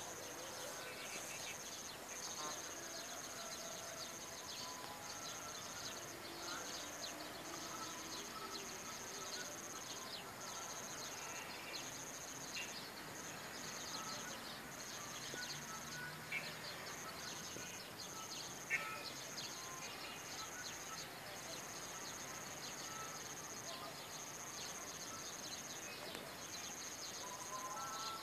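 Outdoor garden ambience: many birds chirping faintly and scattered, with two short louder calls about 16 and 19 seconds in, over an insect's high, steady trill that switches on and off every second or two.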